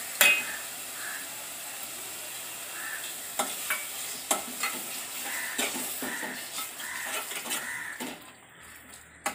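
Hot oil and masala paste in a stainless steel pot sizzling as cold yoghurt is stirred in, the steel spoon clinking and scraping against the pot again and again. The sizzle dies down about eight seconds in.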